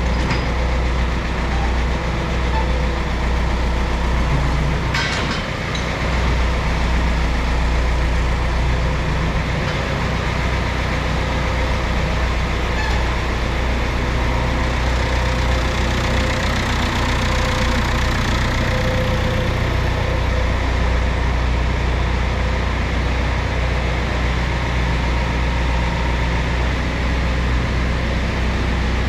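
John Deere 2020 tractor's diesel engine running steadily at idle. There is a brief click about five seconds in.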